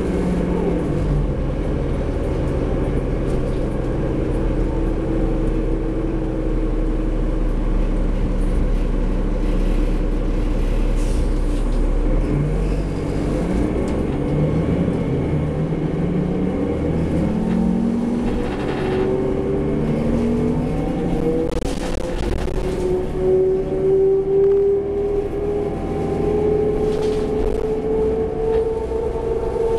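Heard from inside the cabin, a New Flyer D40LF bus's Cummins ISL diesel engine runs steadily at idle, then about twelve seconds in pulls away and accelerates. The engine note rises and drops back several times as the ZF Ecomat automatic transmission shifts up through the gears. A steady whine rising slowly in pitch follows as the bus gathers speed.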